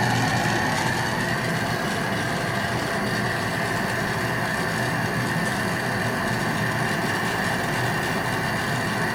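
Steady roar with a faint high whine over it, unchanging throughout: the running noise of a glassblowing shop at the torch bench.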